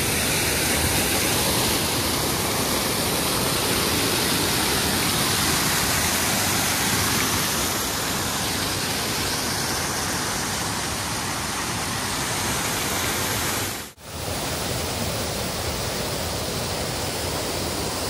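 Water pouring over a small waterfall cascade, a loud steady rush. About fourteen seconds in it cuts out for a moment and comes back.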